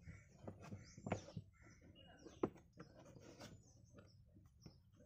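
Rustling, scraping and light knocks of a car boot's felt carpet lining being pulled out by hand, with one sharp knock about two and a half seconds in. A bird chirps in the background with quick falling whistles.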